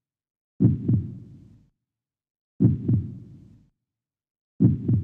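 Slow heartbeat sound effect: a double thump, lub-dub, about every two seconds, three times, each fading away over about a second.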